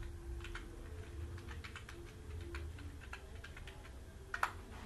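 Typing on a computer keyboard: irregular key clicks, with one louder click about four and a half seconds in, over a low hum.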